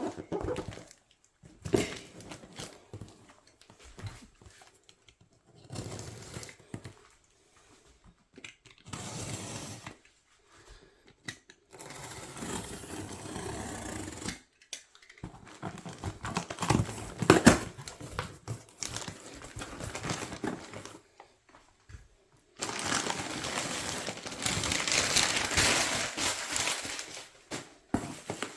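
Parcel packaging being unwrapped by hand: crinkling, rustling and tearing in irregular bursts, with a longer stretch of steady rustling near the end.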